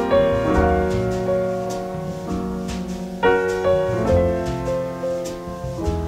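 Background piano music: slow chords and melody notes ringing out, with a new chord struck near the start and another about three seconds in.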